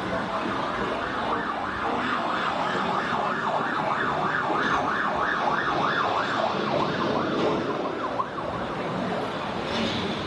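Emergency vehicle siren in a fast yelp, rising and falling about three times a second, over traffic noise; it fades out near the end.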